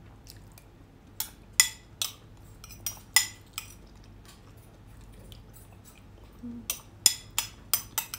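Metal spoon clinking against a glass bowl while scooping up the last of a soup: about six sharp ringing clinks in the first few seconds, a pause, then a quicker run of clinks near the end.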